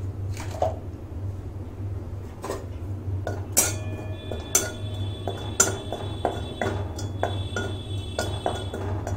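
Metal spatula scraping and tapping against an empty metal kadai while cumin powder is dry-roasted in it: a run of sharp knocks and scrapes. After a harder knock a little past three and a half seconds in, the pan gives a high ring that lingers.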